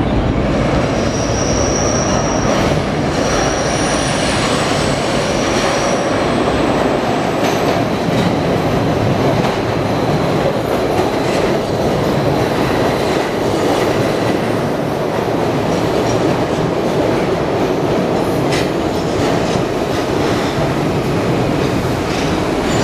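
SEPTA Broad Street Line subway train pulling into the station alongside the platform: steel wheels rumbling and clattering on the rails, with high wheel squeals in the first few seconds.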